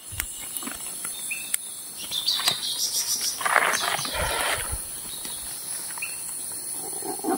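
Steady high-pitched insect chorus, with scattered clicks and a burst of rustling about three and a half seconds in.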